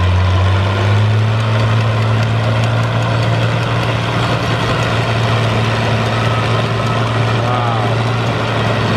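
Fiat 1000 DT tractor's six-cylinder diesel engine running steadily under load while pulling a disc plow through soil. Its pitch rises slightly about a second in.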